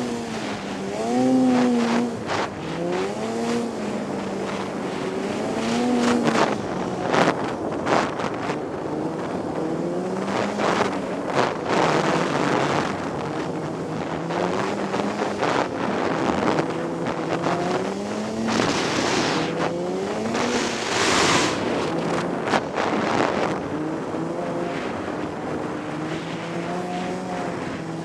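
Two-stroke engine of a '98 Polaris XC 600 Indy snowmobile under way, its pitch rising and falling again and again as the throttle is worked. Bursts of rushing hiss come and go over it, the strongest about two-thirds of the way through.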